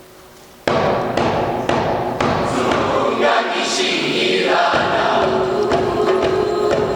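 Music: a soft chord dies away, then less than a second in a choir comes in loudly over the accompaniment, with several sharp thuds near the start.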